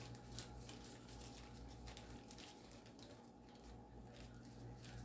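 Near silence: a steady low room hum with a few faint, scattered light clicks and rustles, the strongest of them just under half a second in.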